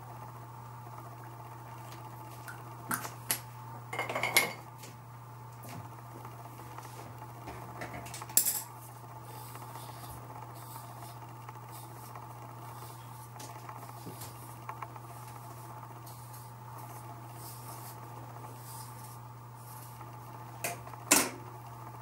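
Small makeup items being handled and set down: a few sharp clicks and clatters, the loudest about four seconds in, again at about eight seconds and near the end, over a steady low hum.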